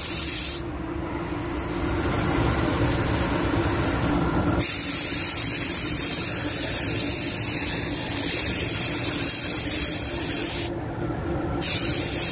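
Spray gun hissing as it lays a light coat of clearcoat, over a steady low hum. The hiss stops about half a second in and resumes some four seconds later, then breaks off once more for about a second near the end.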